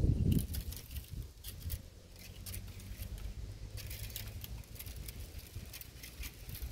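Thin branches and leaves rustling and clicking in scattered, irregular bursts as a young macaque climbs through them, over light wind on the microphone. A low rumble dies away in the first half second.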